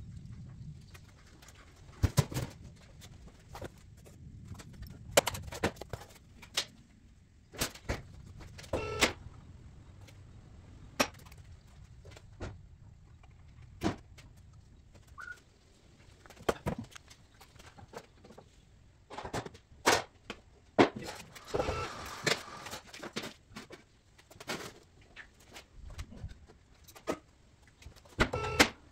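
Irregular sharp metal clanks, knocks and tool clicks from work on the underside of a VW 1300 Beetle's rear engine.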